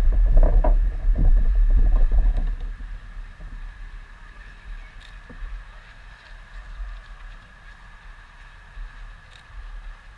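Low rumbling wind noise on the microphone for the first two and a half seconds, then a faint outdoor background with a steady high hum and a few light ticks.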